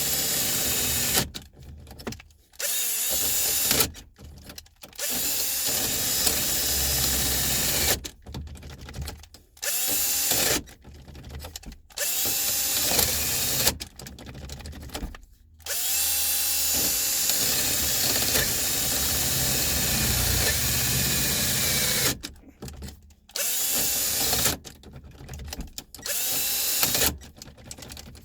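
Ridgid power drill boring into a truck's ignition lock cylinder, run in about a dozen bursts of one to six seconds, its motor winding down in the short pauses between them: drilling out a jammed ignition switch tumbler.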